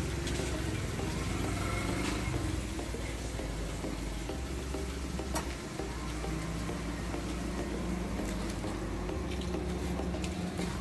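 A vehicle engine idling, heard as a steady low hum whose pitch shifts slightly now and then, with a hiss over it and a single sharp click about five seconds in.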